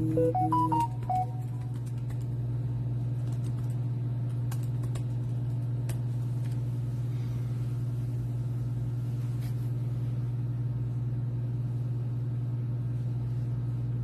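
A short electronic jingle of quick beep tones stepping up in pitch, then dipping, in the first second or so, over a steady low hum.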